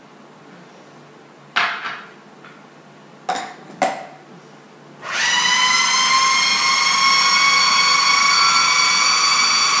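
A few sharp knocks as the food processor's feed tube is handled, then, about five seconds in, the food processor's motor starts and runs steadily with a high whine, its blade mixing cheese, flour, butter and milk into a cracker dough.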